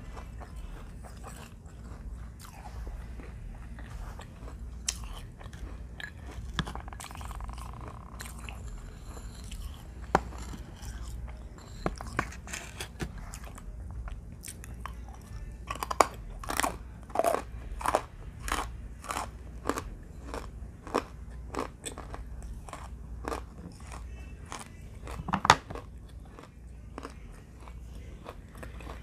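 Close-up crunching and chewing of dry clay chunks: sharp, brittle bites with chewing in between. A quick run of loud crunches comes a little past halfway, and one especially loud crunch near the end.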